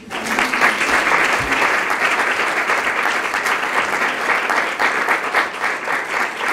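Audience applauding: many people clapping together, a dense steady patter that starts all at once.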